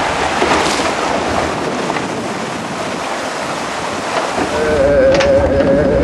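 Water rushing along a flume ride's trough around the riders' boat. About four and a half seconds in, a steady, slightly wavering mechanical whine starts as the boat reaches the conveyor lift hill.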